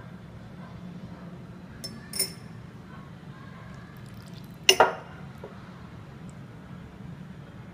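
Metal cutlery clinking against small ceramic dipping bowls: a light clink about two seconds in and a louder double clink near the middle, over a steady low hum.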